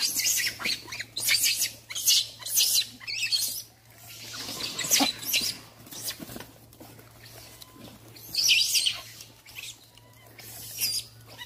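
Macaques in a feeding crowd giving short, high-pitched squeaks and chirps, in quick bunches through the first few seconds, then singly about five seconds in, near the middle of the second half, and near the end.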